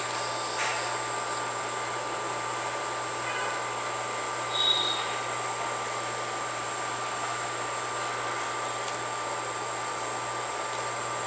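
Steady hum and hiss of background noise, with a few faint brief clicks and a short chirp about five seconds in.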